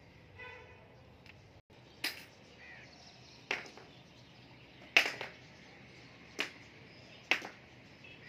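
Five sharp cracks about one and a half seconds apart, the middle one loudest, over faint outdoor background; a short horn toot sounds just before the first.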